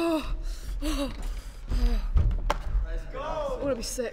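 Voices talking and exclaiming in short bursts, with one sharp knock about two and a half seconds in.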